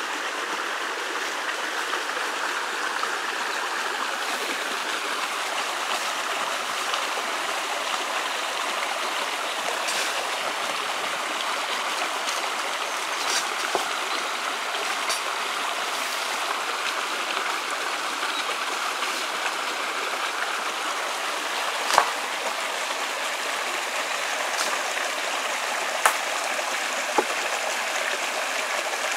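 Steady rushing of a stream's running water, with a few sharp clicks over it, the loudest about two-thirds of the way through.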